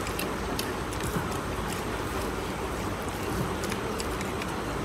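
Steady background roar of noise with a low rumble, with faint scattered clicks over it.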